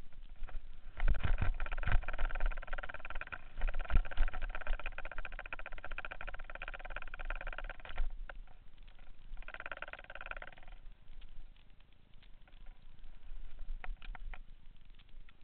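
Mountain bike rattling and clattering down a rough dirt trail, with heavy thumps from bumps in the first few seconds. A loud buzzing from the bike runs for about seven seconds, stops, and comes back for about a second just after the middle.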